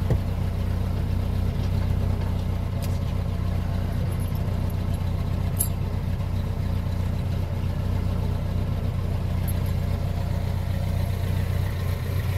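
A vehicle engine running steadily, a low, even drone with a few faint clicks over it.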